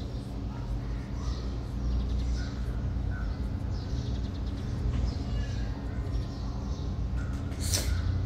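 Steady low background hum with faint, scattered short bird calls, and one sharp click near the end.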